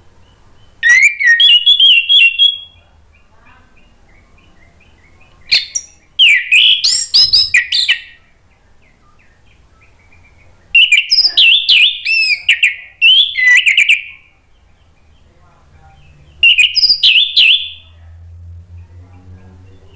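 Orange-headed thrush (anis merah) singing loud, varied phrases of rapid whistled notes in four bursts, each a couple of seconds long, with pauses between them. A low hum with a few overtones comes up faintly near the end.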